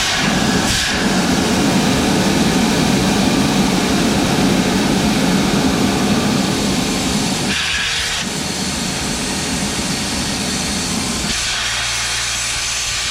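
Loud rush of compressed air blowing out of a large backhoe tire's open valve stem, its valve core removed so the tire deflates. The steady hiss starts suddenly and eases slightly in the second half.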